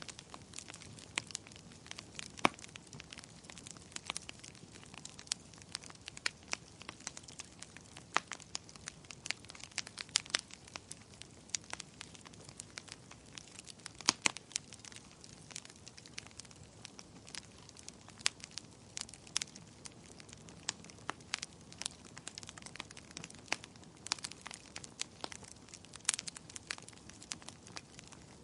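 Wood fire crackling in a fireplace: frequent irregular sharp pops and snaps over a soft low hiss.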